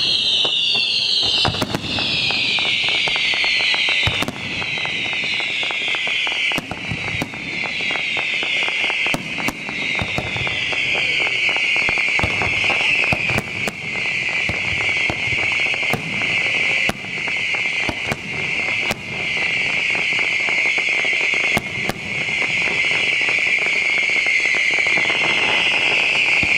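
Fireworks display: aerial shells going off in sharp bangs at irregular intervals, a dozen or more over the span, with dense crackling between them. Above it runs a shrill high-pitched sound that slides down in pitch over the first few seconds and then holds steady.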